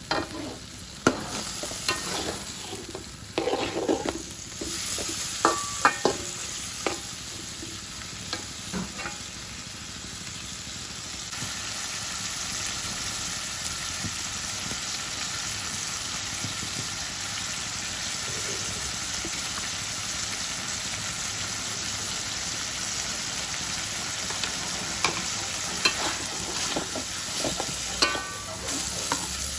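Petai beans and onions sizzling in a wok, with a metal spatula scraping and knocking on the wok as they are stir-fried during the first ten seconds or so and again near the end. In between there is steady sizzling alone.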